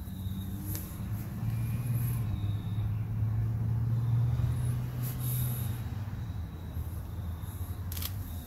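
Low engine rumble of a passing motor vehicle, swelling to its loudest about four seconds in and then fading.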